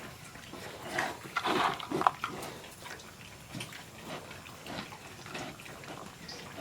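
Philippine native pigs grunting, with short noisy grunts and a brief higher call about two seconds in, then quieter grunts.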